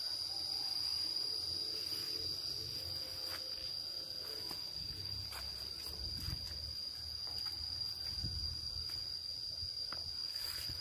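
Insects trilling steadily at one high pitch throughout, with soft footsteps on a dirt path now and then.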